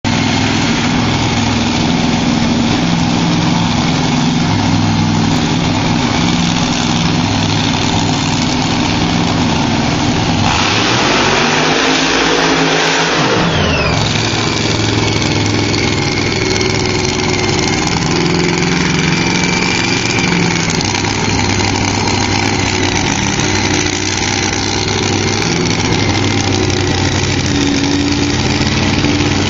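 Supercharged, alcohol-fuelled V8 of a Top Alcohol dragster running at a loud idle, revving up hard for about three seconds around ten seconds in, then dropping back to idle with a high whine that falls in pitch.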